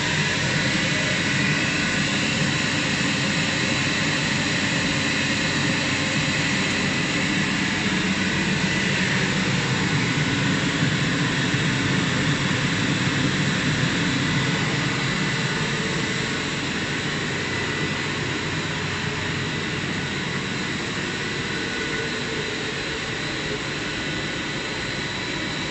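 Steady roar of a KJG sewage-sludge dryer plant running, the thermal-oil heater's burner and the dryer's motors together, with a faint steady high whine. It eases off a little past the middle.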